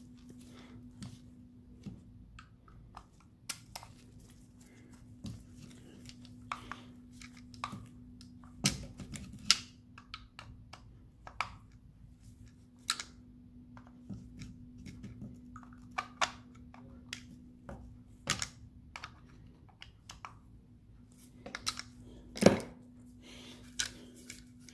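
Irregular clicks, taps and knocks of a diesel fuel filter housing and its plastic top cap being handled and worked on in a bench vise, with a few louder knocks, the loudest near the end. A steady low hum runs underneath.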